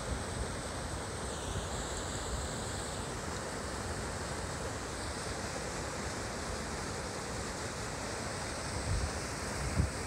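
Partly frozen mountain creek running and splashing over rocks between shelves of ice: a steady wash of water. Wind buffets the microphone near the end.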